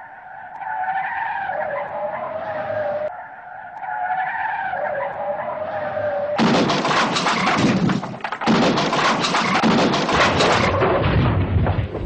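Car crash sounds: two long wavering tyre squeals, then from about six seconds in a loud, drawn-out crash of crunching metal and repeated impacts.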